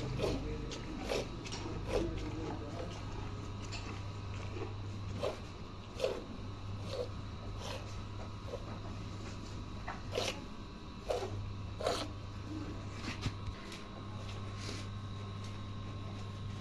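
Milk squirting into a pail as a cow is milked by hand: short hissing squirts, roughly one a second and unevenly spaced, over a steady low hum.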